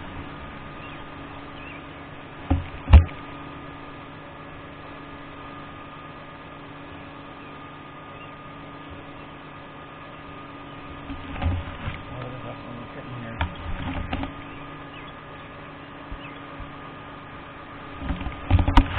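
Steady mechanical hum made of several fixed tones, with a few knocks and thumps: two close together a few seconds in, a cluster around the middle, and another near the end.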